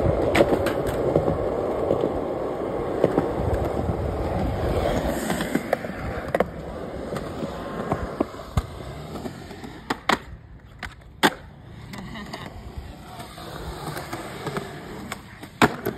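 Skateboard wheels rolling on concrete, strongest in the first few seconds, with sharp clacks of the board striking the ground scattered throughout, one of the loudest near the end.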